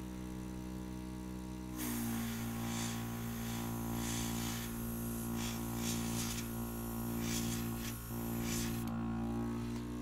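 A small airbrush compressor runs with a steady hum. About two seconds in, the airbrush trigger opens and air hisses from the nozzle, swelling a few times as the spray is worked, while the compressor's note changes under the load. The hiss stops about nine seconds in, leaving the compressor humming.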